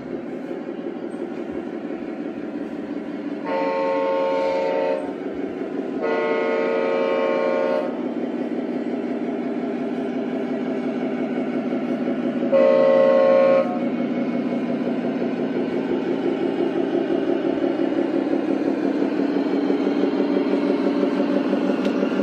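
Radio-controlled model semi-truck's sound module playing a running diesel engine, its note slowly rising in pitch. Three air-horn blasts, each one to two seconds long, cut in over it, and the third is the loudest.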